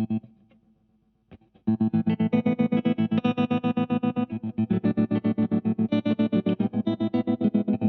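Electric guitar, a Yamaha Revstar, played through a Space Sounds Cosmic Tremolo pedal. A single short note comes first, then after a pause a chord chopped by fast, deep tremolo into a rapid, even, choppy pulse.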